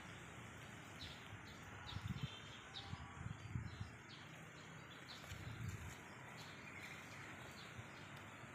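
Faint outdoor ambience with repeated short, high chirps from small birds or insects over a steady background hiss. A few low, muffled bumps come about two, three and a half and five and a half seconds in.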